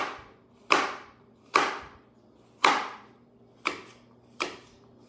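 Chef's knife slicing through a Granny Smith apple quarter on a plastic cutting board: six crisp cuts, each ending in a knock of the blade on the board, about one a second.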